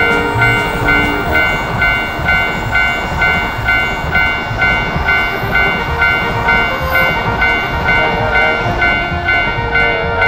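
Japanese railroad crossing warning bell ringing in its steady kan-kan rhythm, about two strikes a second, over the low rumble of a passing train.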